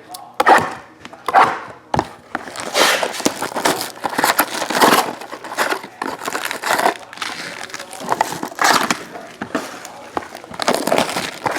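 Crinkling and tearing of trading-card pack wrappers as packs are opened, with cards being shuffled and handled in irregular rustling bursts.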